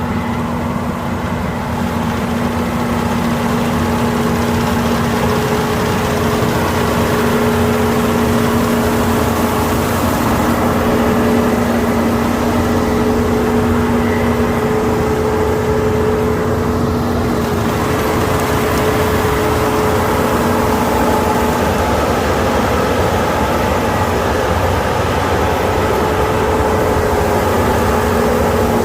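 Kukje KC5130 rice combine harvester running steadily, a loud engine drone with a steady whine over it.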